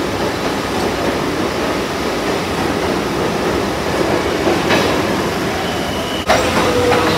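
R62A New York City subway train pulling out of the station, a steady rumble and rattle of wheels on the rails. About six seconds in, the sound breaks off abruptly and is followed by a steady whine.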